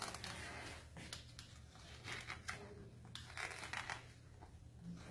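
Utility knife scraping and cutting into a plaster leg cast in a series of short, irregular scratchy strokes.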